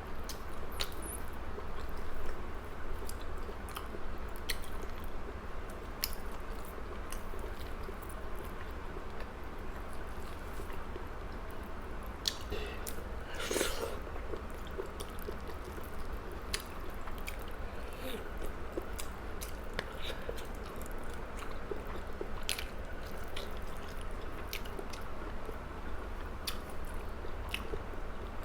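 A person chewing food close to the microphone, with many short, irregular wet clicks and mouth sounds. A steady low hum runs underneath.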